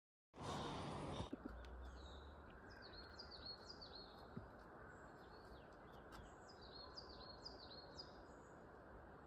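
A small songbird repeating short, high, downward-slurred chirps in quick runs, over a steady rush of flowing water.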